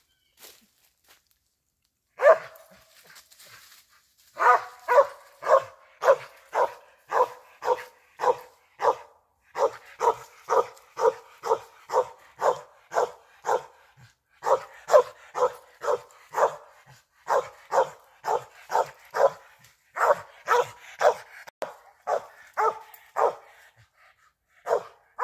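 Squirrel dog barking treed, the sign that it has a squirrel up the tree. There is one bark about two seconds in, then a steady run of barks at about two a second, broken by a few short pauses.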